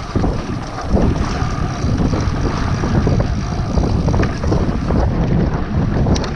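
Wind buffeting the microphone of a camera on a mountain bike being ridden along a trail, with a steady low rumble and frequent small knocks and rattles from the bike over the rough ground.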